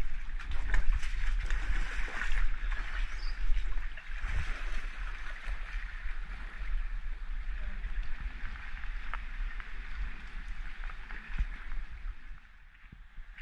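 Small waves washing and lapping among shoreline rocks, an even hiss with small splashes and clicks, and a low rumble of wind on the microphone.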